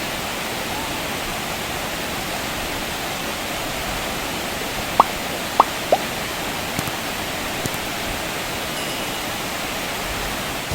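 Waterfall rushing steadily, with three short plops a little after halfway.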